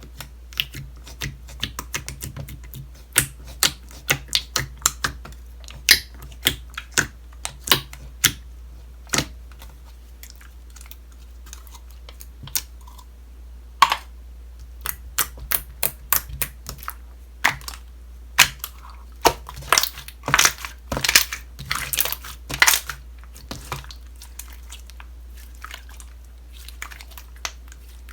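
Slime being squished and poked by hand, giving quick, irregular clicking pops in clusters, with a lull of a few seconds about ten seconds in. A steady low hum runs underneath.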